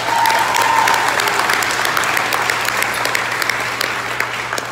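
A large audience applauding, loudest just after it starts and slowly fading toward the end.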